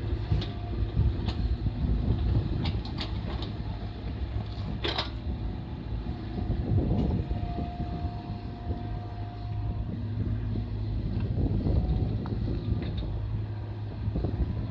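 Mini excavator's engine running steadily, with several sharp knocks in the first five seconds, the loudest about five seconds in. A steady whine lasts for about two seconds midway.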